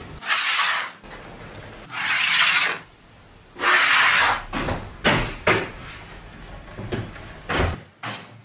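Three long rubbing strokes of a pencil and wooden straightedge on a wooden board during layout marking, each about a second long. They are followed by a run of short, light wooden knocks and taps.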